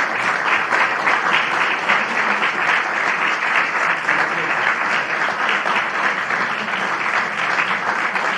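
Audience applauding steadily, many hands clapping in a dense, even patter with no break.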